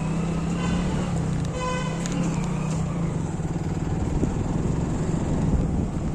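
Steady drone of a road vehicle's engine with road noise, and a vehicle horn honking briefly twice in the first two seconds, the second honk louder.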